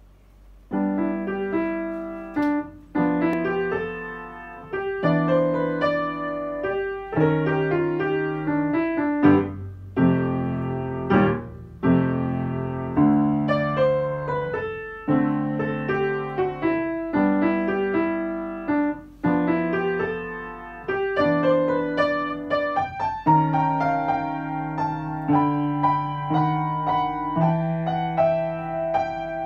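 Upright piano played solo, starting about a second in: low chords held for about two seconds each under a moving melody.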